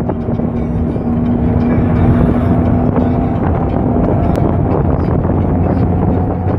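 Steady running noise of a moving vehicle heard from on board: engine hum with road and wind noise, unbroken throughout.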